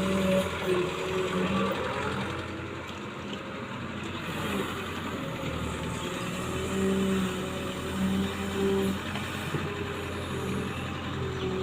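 Excavator engine running steadily, its pitch and loudness swelling and easing every second or two as it works.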